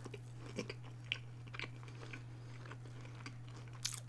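Close-miked eating: a bite into a fried, egg-topped snack, then chewing with soft crunches and wet mouth clicks, a sharper click about a second in and another near the end.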